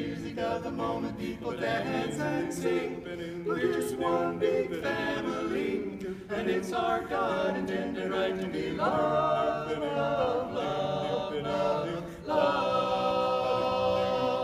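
Barbershop quartet singing a cappella in close four-part harmony, settling into a long held chord over the last couple of seconds.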